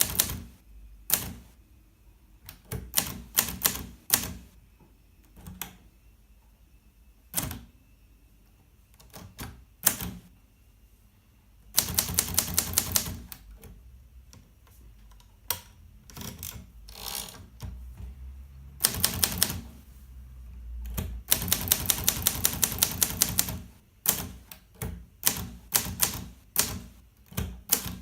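Hermes 3000 manual portable typewriter being typed on: runs of rapid key strikes with pauses between, and scattered single strikes.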